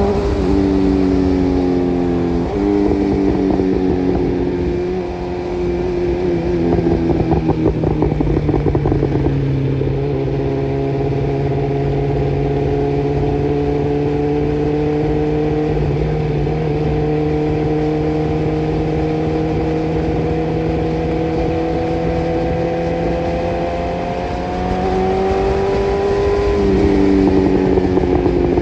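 Suzuki Carry DA63T mini truck's engine running at held, raised revs, its pitch stepping down about two seconds in, then climbing and dropping again near the end.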